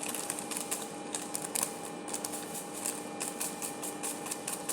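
Irregular light clicks and taps of kitchen handling, over a faint steady hum.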